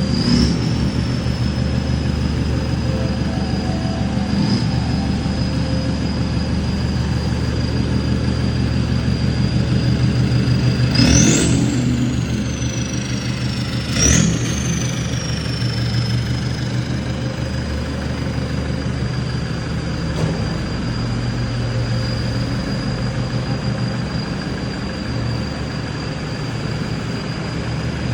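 Toyota Hilux engine idling through a straight-through exhaust with no muffler, a steady high whistle sounding over the idle. Two quick throttle blips, about 11 and 14 seconds in, send the whistle sharply up, and it falls back as the engine settles to idle.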